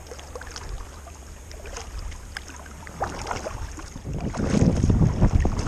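Water lapping and dripping against a kayak hull and paddle, with many small splashy ticks. Wind buffets the microphone, growing louder over the last second or two.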